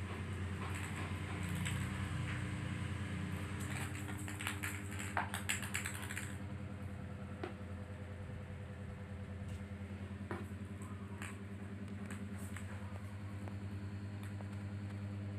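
A steady low hum, with a quick run of light clicking taps about four to six seconds in and a few single clicks later.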